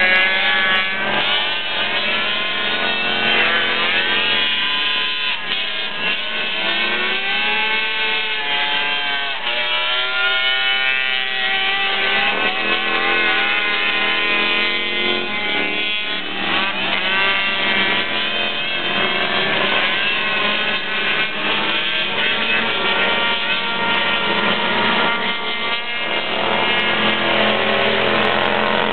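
Engines of several six-wheel amphibious ATVs racing on a dirt track, their pitches rising and falling as they rev up and back off through the turns.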